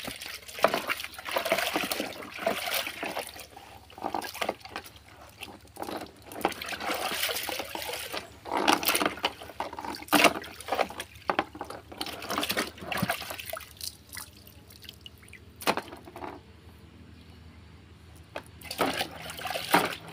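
Water splashing and pouring in a plastic bucket as a motorcycle chain is rinsed by hand, lifted out and dunked again, in uneven bursts. The splashing eases off for a few seconds in the second half, then picks up again near the end.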